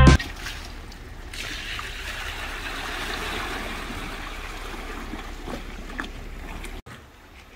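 Water washing and splashing around a small aluminium fishing boat's hull as it is launched off its trailer, a steady rushing hiss that cuts off abruptly near the end.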